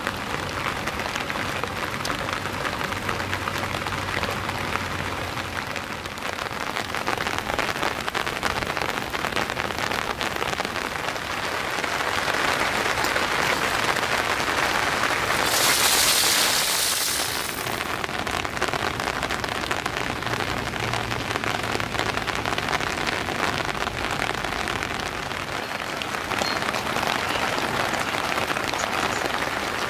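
Steady rain falling, with a louder, higher hiss for about two seconds midway through.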